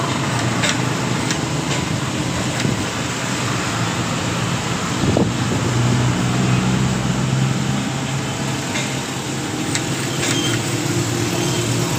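An engine running steadily with a low hum, with a few faint metallic clicks from handling a steel steering box.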